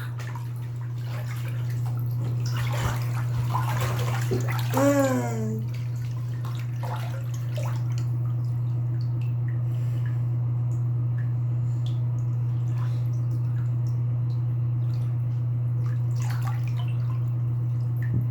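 A steady low hum with a faint hiss over it, and a short falling voice sound about five seconds in.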